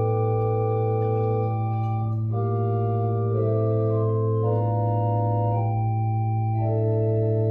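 Organ playing slow, sustained chords that change about once a second over a steady low bass note.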